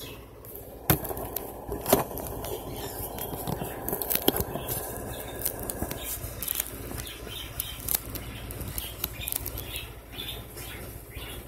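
Rustling and a few sharp knocks as the phone is handled and propped up, then scattered light clicks and taps.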